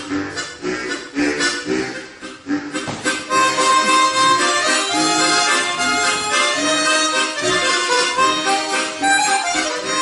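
Harmonica quartet playing together live, one player on a long harmonica. A softer, pulsing passage gives way about three seconds in to a louder, fuller section with a held melody.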